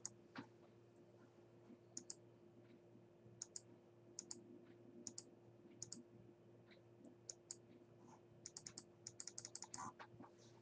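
Computer keyboard keys tapped in short quick runs of light clicks, thickest near the end, over a faint steady hum.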